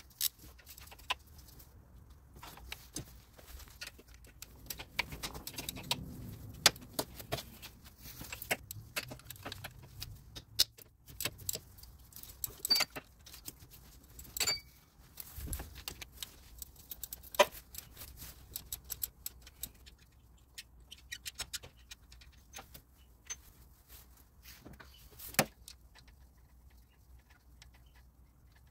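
Metal hand tools (wrenches and a socket) clinking, clicking and rattling against engine parts and brackets in a car's engine bay, in irregular sharp clicks with occasional flurries. There is a dull bump about halfway through.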